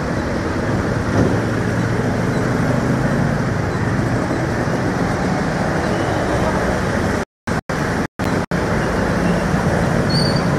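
Motorcycle and auto-rickshaw traffic driving through floodwater on a road: steady engine hum under a continuous wash of splashing water. The sound cuts out abruptly to silence several times for a moment about seven to eight and a half seconds in.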